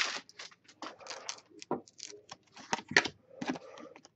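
Foil wrapper of a 2008-09 SPx hockey card pack being torn open and crinkled by hand, with a scattered run of small sharp clicks and rustles as the cards are handled.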